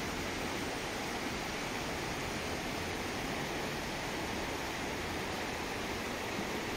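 Steady, even rushing hiss with no separate events and no change in level.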